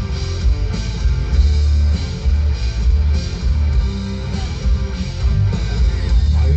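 Live rock band playing instrumentally on electric guitars and drums through a PA, steady and loud with a heavy low end, without vocals.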